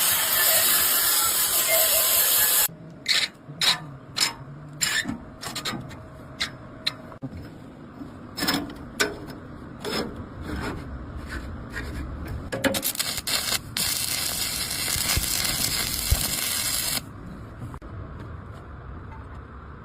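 Arc welding on an excavator arm: a steady frying hiss that stops about three seconds in, then a run of sharp metal taps and knocks at irregular intervals, and a second spell of the hiss from about 14 to 17 seconds in.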